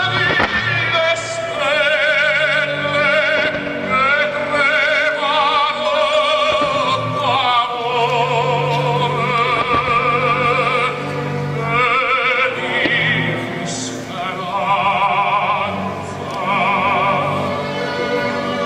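Operatic singing with strong vibrato over orchestral accompaniment.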